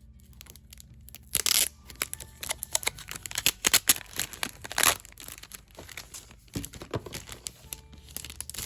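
Packaging crinkling and tearing as it is opened by hand. A burst of rustling comes about a second and a half in, then a run of crackles through the middle, quieter toward the end.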